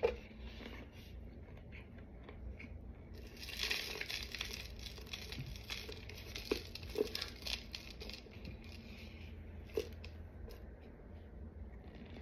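Dry crinkling and rustling with scattered light clicks. A louder stretch of rustling begins about three seconds in and lasts a couple of seconds.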